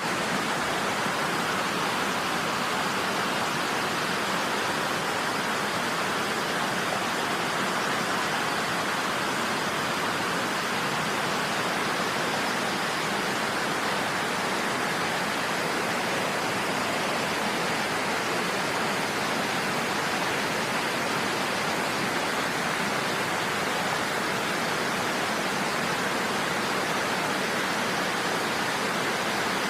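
Niagara Falls' water rushing in a steady, unbroken roar of falling water.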